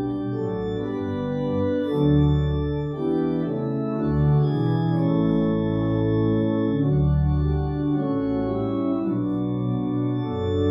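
Church organ playing the closing hymn, held chords changing every second or so.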